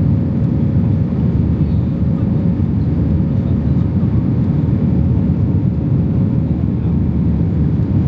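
Steady low roar of an Airbus A320's engines and rushing air heard inside the passenger cabin in flight, with a faint steady hum.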